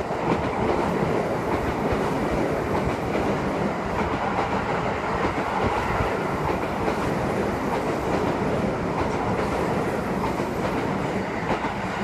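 Electric commuter train passing close by at speed without stopping, wheels clattering over the rail joints in a steady rush of noise.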